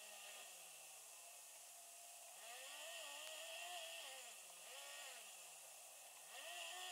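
A car engine heard faintly from inside the cabin, its note rising and falling as the car speeds up and slows. The pitch sinks and holds low at first, climbs about two and a half seconds in, dips and climbs again, drops back, and rises once more near the end.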